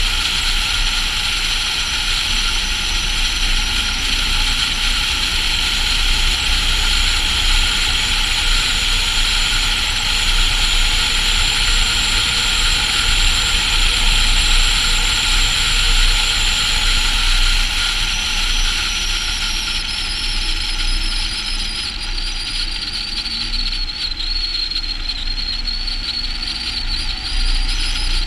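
Volvo FH16 700 truck's 16-litre straight-six diesel running at road speed, a steady drone with road and tyre noise on a snowy road. A high whine sinks slightly in pitch and rises again near the end.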